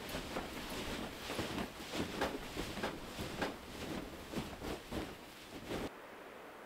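Footsteps crunching in deep snow, about two to three steps a second, stopping abruptly about six seconds in.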